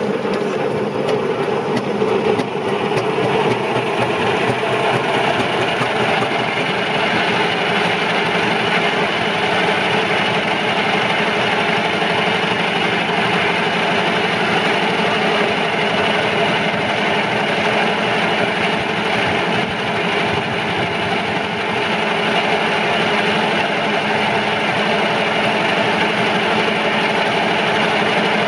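Large circular log saw running steadily, driven by a flat belt from a steam traction engine; the spinning blade and drive make a continuous mechanical running noise that firms up in pitch a few seconds in.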